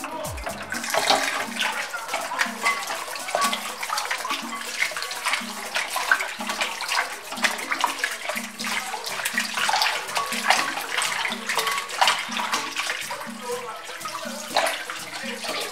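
Tap water running into a glass bowl in a stainless steel sink while hands rub and squeeze chunks of raw goat meat, with irregular splashing throughout: the meat being rinsed clean.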